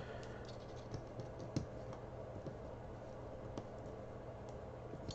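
Faint, scattered small clicks and taps of a small screwdriver and fingers working screws into the TS-100 soldering iron's circuit board and plastic handle, with the sharpest click about a second and a half in, over a faint low hum.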